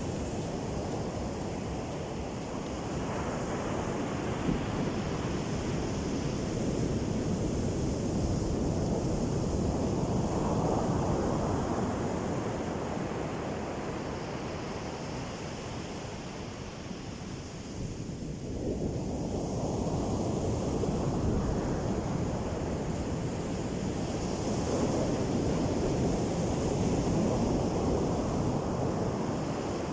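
High surf on a sandy beach: waves breaking and washing up the shore in long surges that swell and ease, with a lull about halfway through. Wind buffets the microphone.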